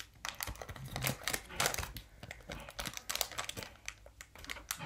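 Foil trading-card pack crinkling and crackling in irregular little clicks as it is handled and opened.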